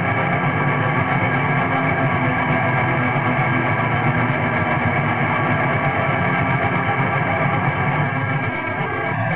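Raw, lo-fi black metal: a dense, unbroken wall of distorted guitar and tremolo-picked distorted bass, muffled and dull-topped, thinning briefly near the end.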